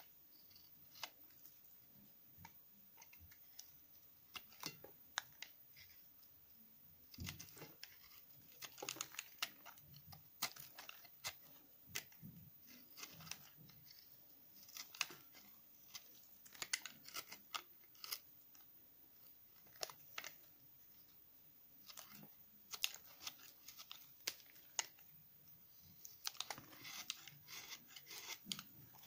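A utility-knife blade shaving slices off a firm bar of stuck-together soap scraps: irregular crisp, crunchy cuts, some coming in quick runs.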